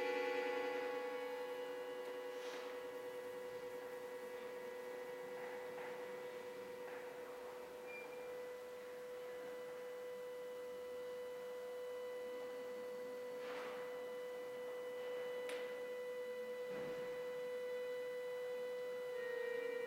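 Bayan (chromatic button accordion) holding one quiet, nearly pure note after a fuller chord thins out in the first couple of seconds; other notes come in again near the end.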